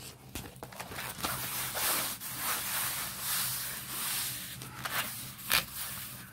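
Diamond painting canvas being unrolled and smoothed flat by hand over a fabric surface: continuous rustling and rubbing, with a couple of sharper crackles about five seconds in.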